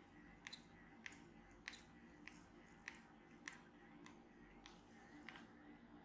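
Faint, sharp clicks repeating evenly, about one every 0.6 seconds, with a longer gap about four seconds in.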